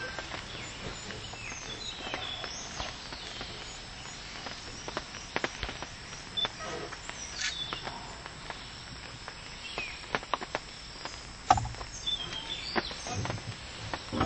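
Outdoor forest ambience: a few short, high chirping calls scattered through, over frequent light clicks and knocks, with one louder knock about eleven and a half seconds in.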